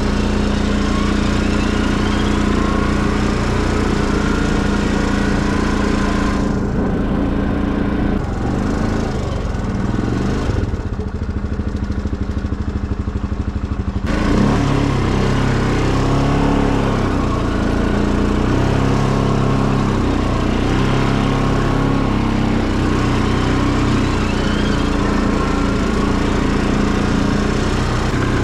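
Tractor engine running steadily under way. A quarter of the way in its note eases off and turns duller for several seconds, then picks up again about halfway through.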